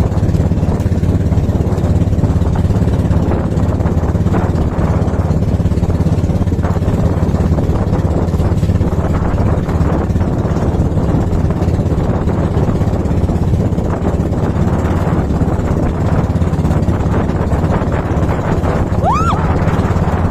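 Small motorboat's engine running steadily at an even pace. About a second before the end, a brief rising tone sounds over it.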